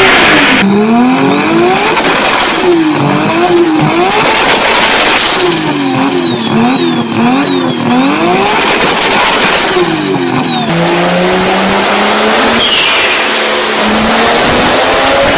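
Car engines being revved hard again and again, the pitch sweeping up and down in quick succession. After a sudden change about eleven seconds in, a car engine pulls with a steadily rising pitch.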